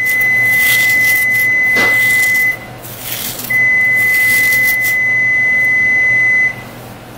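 Kitchen timer beeping for the baking bread: a steady high-pitched tone held for about three seconds, a pause of about a second, then a second tone of about three seconds.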